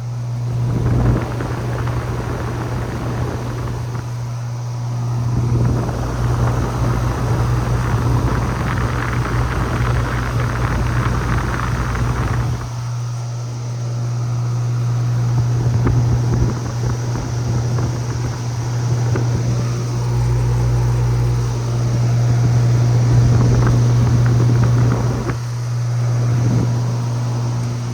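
Outdoor air conditioner condensing unit running close up: a steady low compressor hum under the rushing air of its fan, the rush swelling and easing over the seconds.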